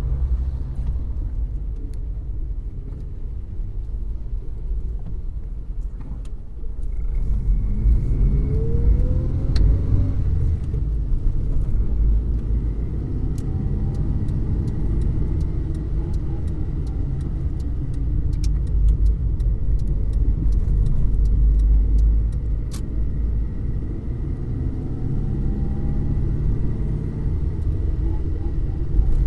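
Car engine and road rumble heard from inside the cabin while driving. About seven seconds in it gets louder and the engine pitch rises as the car accelerates, then it settles into a steady run.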